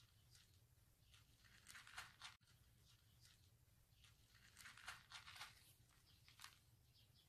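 Near silence, broken by a few faint, short rustles and crunches about two seconds in and again around five seconds.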